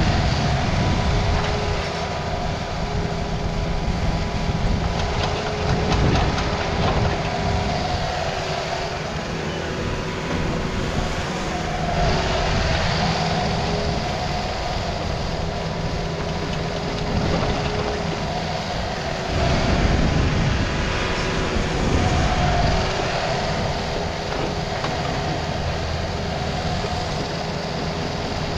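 Takeuchi TB260 mini excavator's diesel engine running under load with its hydraulics working as the bucket digs a trench through rocky soil. The level swells and dips as the arm works, with a few knocks of rock in the bucket.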